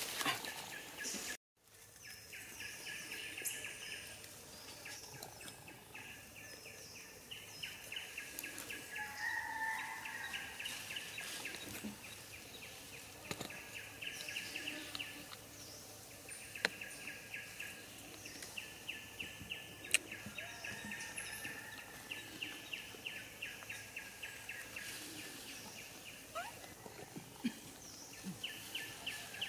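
Outdoor ambience of long trains of rapid, high chirping that start and stop every few seconds. The sound drops out completely for a moment about a second and a half in, and there are a few sharp clicks.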